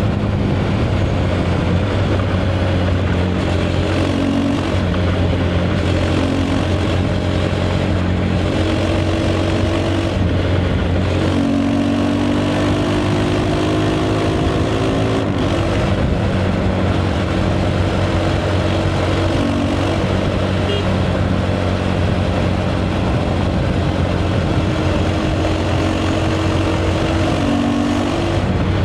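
KTM 390 Adventure's single-cylinder engine through its stock exhaust, running steadily at cruising revs. About eleven seconds in the revs climb for a few seconds, then drop back sharply before settling steady again.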